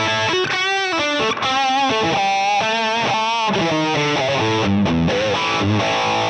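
Ibanez electric guitar playing a distorted lead line through the Fractal Axe-Fx III's Plexi amp model. It plays sustained single notes with wide vibrato.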